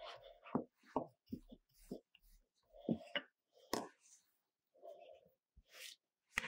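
Wooden rolling pin rolling over brioche dough on a mat, giving a string of short knocks and soft rubbing sounds, then hands lifting the dough.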